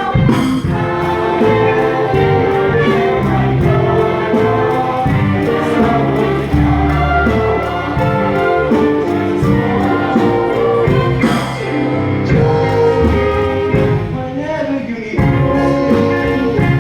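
Musical theatre number: singing over instrumental accompaniment, playing steadily and loudly throughout.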